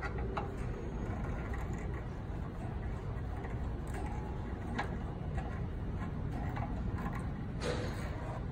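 Hand tools working on the compressor's throttle-control fittings: a few scattered clicks and scrapes, with a louder cluster near the end, over a steady low background rumble.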